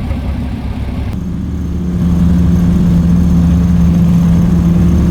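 An engine running, with a low rumble and a steady hum that comes in about a second in and grows louder about two seconds in.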